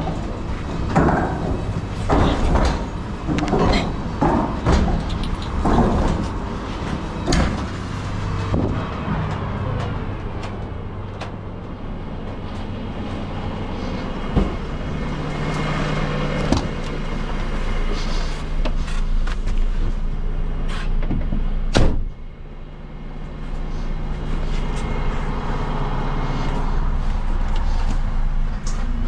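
Garbage truck's diesel engine running steadily, with a run of knocks and clattering in the first eight seconds and a single sharp bang about twenty-two seconds in, after which the sound briefly drops before the engine hum rises again.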